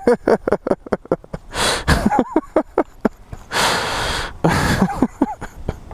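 A person laughing hard: quick strings of short 'ha's broken by long, breathy gasps for air.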